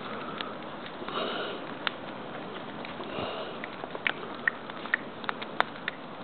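Brush bonfire burning with a steady hiss, broken by irregular sharp pops and crackles from the burning wood and brush, more and louder in the second half.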